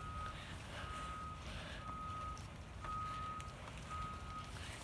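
Vehicle reversing alarm beeping: a steady high beep repeating about once a second, each beep about half a second long.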